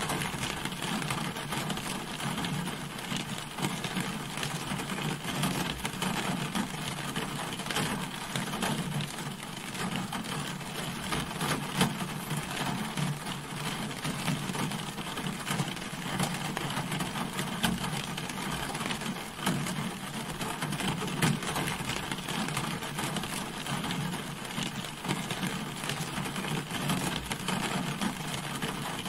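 Rain falling steadily on a car, a dense patter of drops striking the body, with a few heavier hits standing out.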